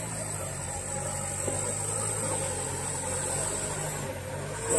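Diesel engine of a loaded Mitsubishi Canter truck running steadily at low revs, labouring up a steep climb. The truck is losing power on the grade. A steady high-pitched whine sits above it.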